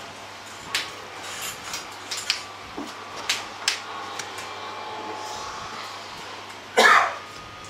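Playing cards being handled on a playmat: a few light clicks and taps over a steady room hum, with one short loud burst about seven seconds in.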